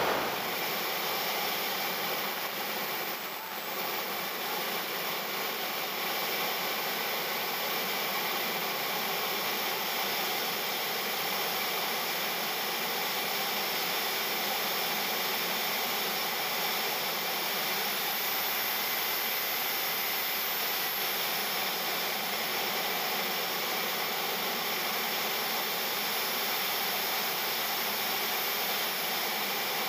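JetCat 160SE model jet turbine running steadily in flight, with the rush of air over the airframe, heard from a mini camera in the model jet's cockpit. A faint high whine comes in for a few seconds about two-thirds of the way through.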